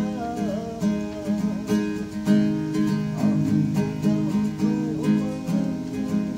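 Acoustic guitar, capoed, strummed in a steady rhythm of chords.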